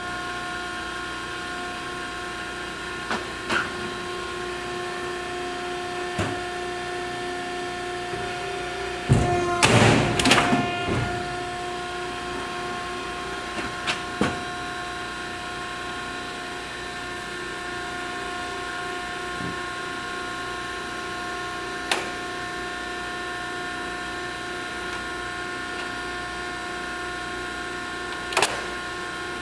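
Associated Pacific die-cutting press running with a steady hum. About nine seconds in it cycles once, a loud burst of about two seconds as it cuts the plastic sheet. A few sharp clicks sound later on.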